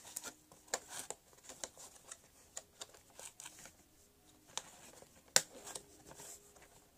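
Faint handling noises from opening a toy's cardboard box and its inner packaging: scattered light clicks, scrapes and rustles, the sharpest click a little after five seconds in.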